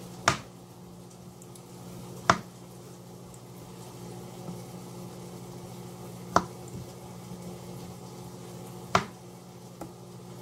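Knife cutting olives into quarters on a wooden cutting board: a sharp knock of the blade against the board every few seconds, four in all plus a lighter tap near the end, over a steady low hum.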